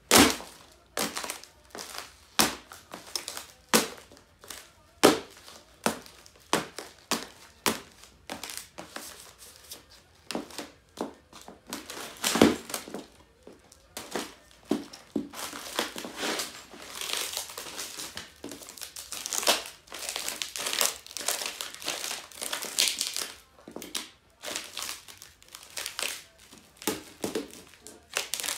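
A laptop's plastic case and screen cracking and crunching under high-heeled shoes stamping on it: a long run of sharp, irregular snaps and knocks, loudest just after the start and about twelve seconds in, turning into denser crackling in the second half as the lid and screen panel break apart.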